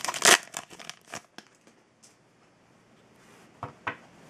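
A foil trading-card pack being torn open and crinkled by hand, loud for about the first second, then dying away. Near the end come two short clicks as the cards are handled.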